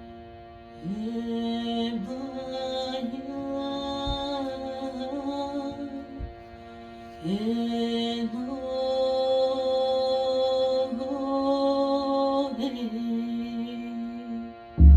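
Wordless, chant-like singing of long held notes in two phrases, each sliding up into its note, over a steady drone. A loud, low thump comes right at the end.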